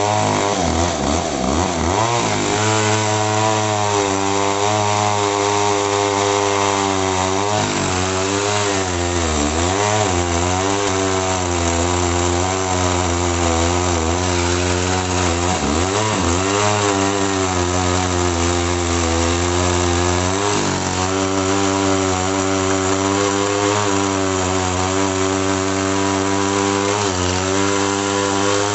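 Two-stroke chainsaw running hard at high revs, its engine pitch sagging and recovering several times as the chain is loaded in cuts through eucalyptus logs.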